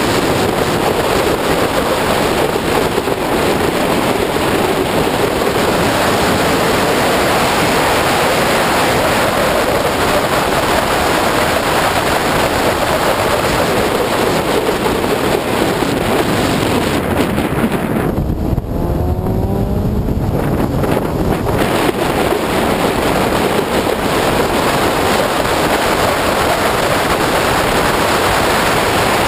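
Opel Speedster driven at speed on a track, heard from a bonnet-mounted camera: steady wind rush on the microphone over engine and tyre noise. About eighteen seconds in the wind noise drops away for about three seconds and rising engine tones come through.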